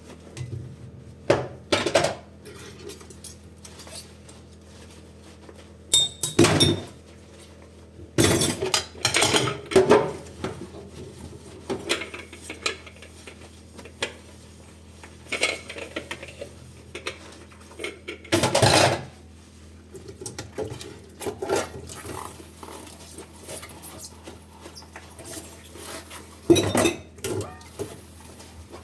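Dishes and cutlery clinking and clattering while they are washed by hand, in irregular bursts with quieter pauses between them.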